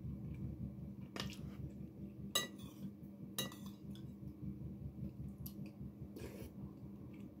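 Cutlery clinking against a dish while eating: two bright ringing clinks about two and a half and three and a half seconds in, with a few softer knocks, over a steady low hum.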